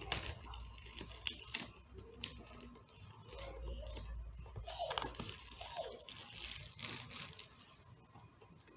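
Packaging being pulled off a small earbuds box: irregular rustling, crinkling and tearing, with scattered light clicks of handling.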